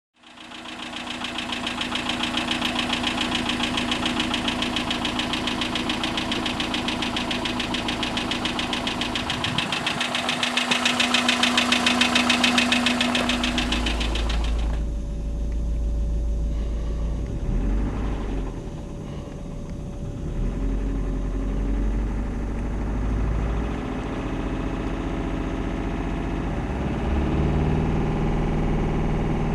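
Subaru EJ25 flat-four engine running with a rapid, even knocking, which the owner suspects is piston slap or a worn rod bearing. About halfway through, the sharp ticking fades and a deep low rumble takes over.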